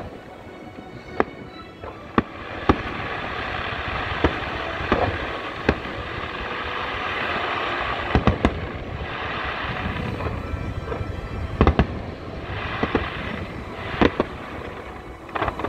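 Aerial firework shells bursting in sharp bangs every second or two, with a quick triple bang about eight seconds in, over music in the background.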